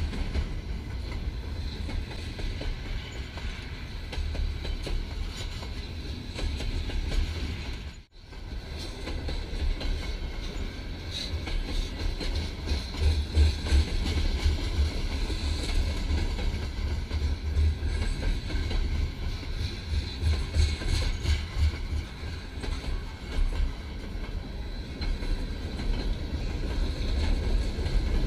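CP Rail freight train of box and tank cars rolling past on the rails, heard under heavy wind buffeting the microphone. The sound cuts out for a moment about eight seconds in.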